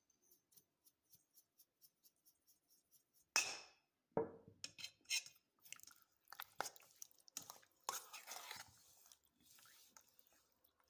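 Garlic powder shaken out of a glass spice jar in light, regular ticks, then a sharp clatter about three seconds in. After that a metal spoon stirs raw marinated chicken breast in a stainless steel bowl: wet squishing with the spoon clicking and scraping against the bowl.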